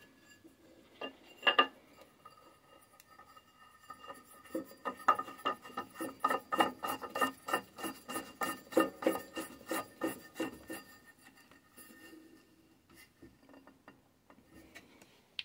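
Small round metal lawnmower muffler being screwed by hand into the engine's exhaust port: two knocks near the start, then a run of quick grating, metallic clicks as its threads turn in the port.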